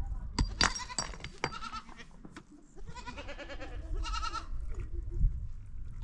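Livestock bleating: several quavering bleats, two close together in the first second and a half and two more about three and four seconds in. A few sharp knocks sound near the start.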